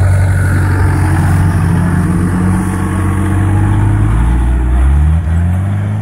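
Engine of a Toyota Land Cruiser 4x4 working hard under load as it climbs a steep grassy bank off-road. The engine note rises and dips as the throttle is worked, climbing most about four to five seconds in.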